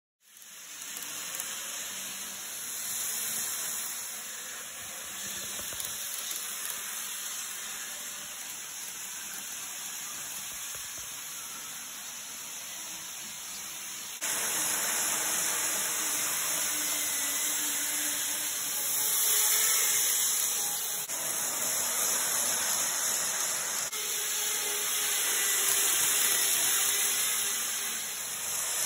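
N-gauge model train running on its track: a steady, high-pitched hiss and whir of small wheels on rail and the motor, getting louder about halfway through.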